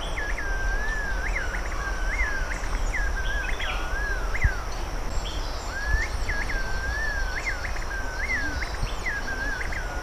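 Grey-fronted green pigeon singing: two phrases of melodious whistling, each about four seconds long, made of wavering notes with short rises and falls.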